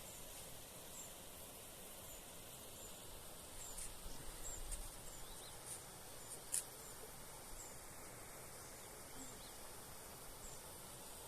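Faint outdoor ambience: a quiet hiss with short, very high chirps repeating about once a second. A single sharp click about two-thirds of the way through is the loudest sound.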